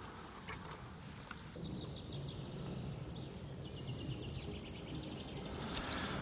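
Small birds chirping and singing, with a run of quickly repeated high notes in the middle, over a steady low outdoor background noise.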